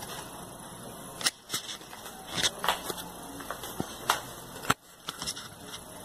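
Irregular sharp clicks and knocks, about half a dozen, over a steady background hiss; the loudest come about a second in and near the end.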